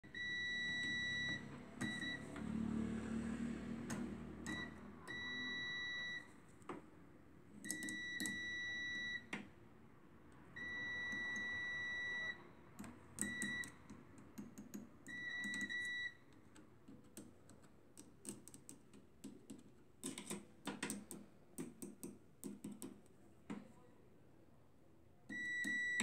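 Multimeter continuity beeper sounding a steady high tone that switches on and off about eight times, each beep lasting from a split second to nearly two seconds, as the test probes touch and leave the microwave oven's ground connections; each beep signals an unbroken path to ground. Sharp clicks and scrapes of the probe tips fill the gaps, mostly in the second half.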